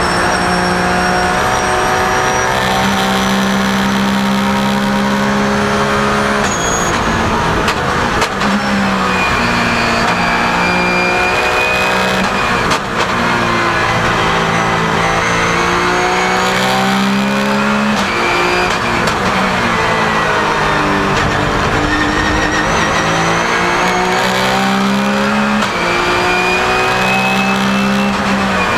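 Porsche 997 GT3 Cup's flat-six racing engine at full throttle, heard from inside the cockpit, its revs repeatedly climbing and then dropping quickly at each gear change.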